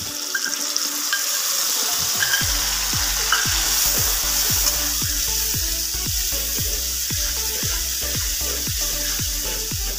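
Wet masala paste (spices mixed with water) sizzling steadily in hot oil and fried onions in an aluminium kadai, as a spatula stirs it around the pan.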